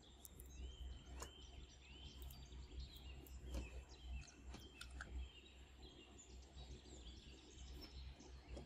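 Faint background sound: a low steady hum with scattered short chirps, like distant birds, and a few light clicks.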